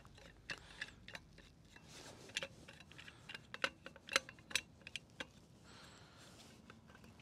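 Faint, irregular metallic clicks and light taps as the lid and clamp of a Malinovka home autoclave are handled and secured.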